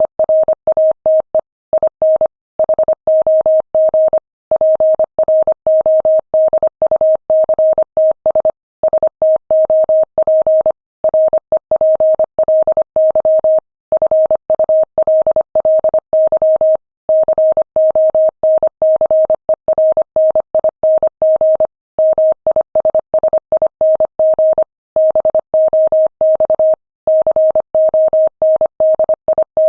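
Morse code sent at 25 words per minute: a single steady mid-pitched tone keyed on and off in quick dots and dashes, with short pauses between words.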